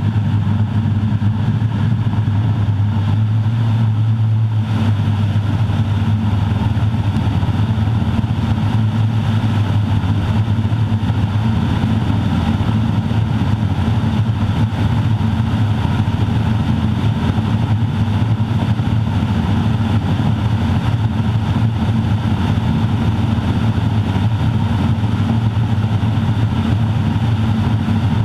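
Grumman Ag Cat's Garrett TPE331-6 turboprop engine and propeller droning steadily at working power, heard inside the cockpit. A deep, steady hum dominates: the uncomfortable resonance this airplane produces.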